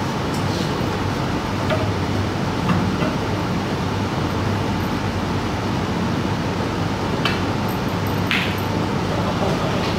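Steady room noise with a low hum, broken by a few faint clicks in the first three seconds and two sharper clicks a little after seven and eight seconds in.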